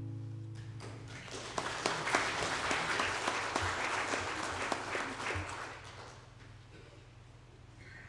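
The last acoustic guitar chord rings and dies away, then a church congregation applauds for about five seconds before the clapping fades out.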